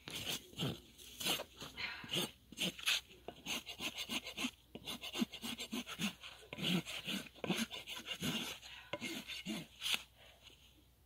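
Steel hoof rasp drawn back and forth across the bottom of a horse's front hoof in quick repeated rasping strokes, about two a second. The strokes stop shortly before the end.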